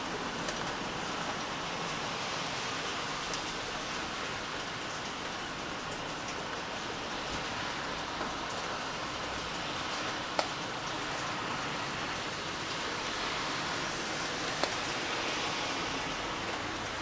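Steady rain falling, an even hiss with a few sharp single drips standing out, the loudest about ten seconds in.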